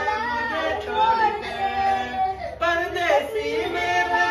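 A man singing a Hindi film song without accompaniment, drawing out long, wavering held notes, with a new phrase starting about two and a half seconds in.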